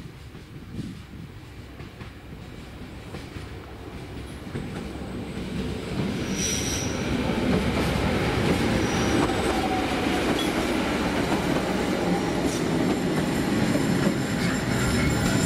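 A narrow-gauge train approaching and passing, its running noise growing steadily louder over the first several seconds, with wheels briefly squealing on the rails about six seconds in.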